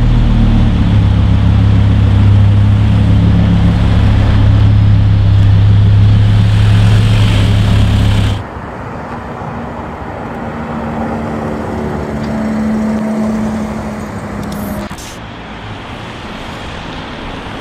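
Lamborghini Huracán V10 running loud and steady at a fast idle. About eight seconds in it cuts to quieter city street traffic, with a fainter engine hum and cars going by.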